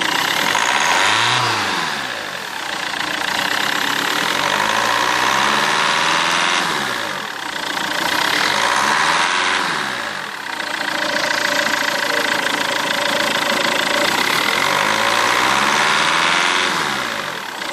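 2003 Mazda 6 2.0 four-cylinder turbodiesel running steadily while cold, making the abnormal noise the owner reports on a cold engine.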